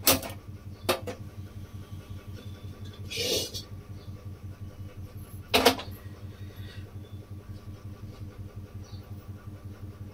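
Clicks of a hand-held spark gas lighter at a gas stove burner, a short hiss of gas catching around three seconds in, then a sharp metallic clank just before six seconds as a metal kadai is set down on the burner grate. A steady low pulsing hum runs underneath.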